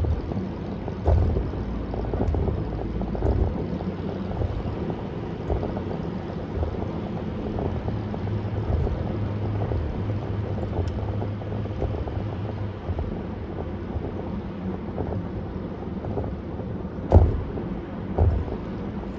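A car driving along a highway: a steady low rumble of tyres and engine with some wind noise and short thumps from bumps in the road. The loudest thump comes near the end, followed by a smaller one about a second later.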